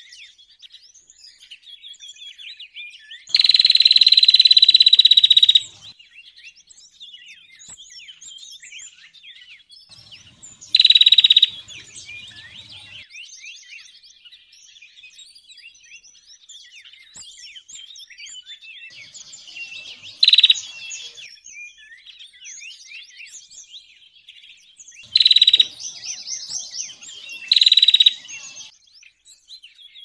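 A chorus of small songbirds, including ciblek (bar-winged prinia), chirping without a break. Five much louder buzzy trills cut through it: a long one of about two seconds a few seconds in, then four short ones spread out towards the end.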